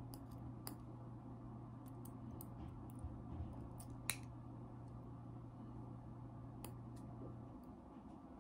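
Faint scattered clicks and taps of a metal needle driver and forceps handling a suture on a silicone practice pad, the sharpest about four seconds in. Under them runs a steady low hum that stops near the end.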